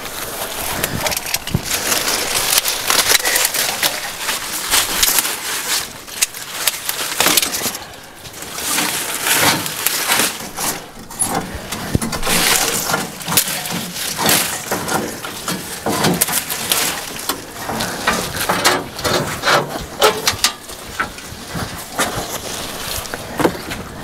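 Weeds and brush rustling and snapping as they are pulled and torn away by hand, a dense, uneven run of crackles and rustles.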